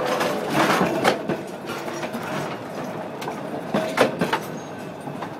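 Durango & Silverton narrow-gauge steam train running on the track, with a steady rumble and irregular sharp metallic clanks and knocks.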